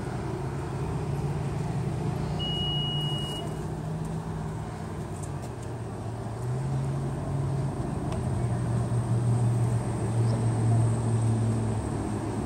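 A motor vehicle engine running nearby: a low hum that shifts in pitch and grows somewhat louder. One short high beep sounds about two and a half seconds in.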